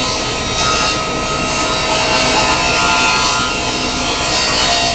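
Table saw running and ripping a veneered oak board lengthwise: a steady blade whine with the rasp of the blade cutting wood.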